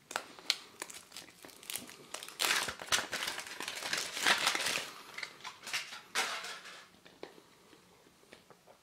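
Printed foil wrapper being peeled off a large Kinder Maxi chocolate egg, crinkling and crackling in irregular bursts that die away to a few faint rustles near the end.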